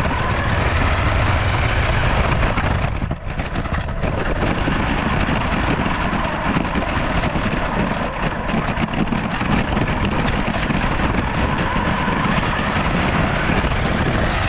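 Toy RC crawler truck driving, a steady loud noise of its electric motor, gears and tyres rolling, with a brief dip about three seconds in.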